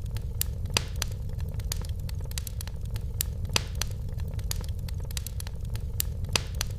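Wood fire burning in a fireplace: irregular sharp crackles and pops, a few louder snaps among them, over a steady low rumble of the flames.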